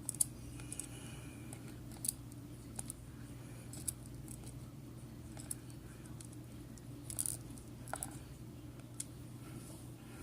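Scattered light metallic clicks and taps as small lock pins and tools are handled, over a steady low hum.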